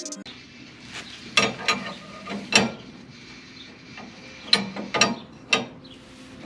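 Six sharp metallic clanks and knocks in two groups of three, each ringing briefly, from hand tools working on metal car parts.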